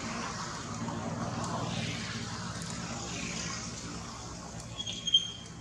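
A steady low mechanical drone runs under a light hiss. About five seconds in comes one short, sharp high-pitched chirp.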